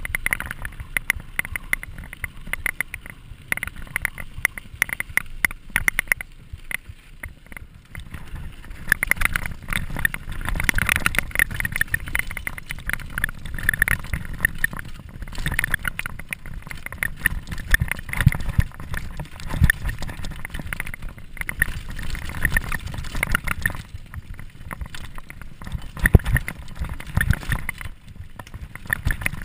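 Mountain bike ridden fast over a rough gravel and dirt trail: a constant clatter of rapid knocks and rattles from the bike and its mounted camera over bumps, on top of a low rumble of tyres and air over the microphone.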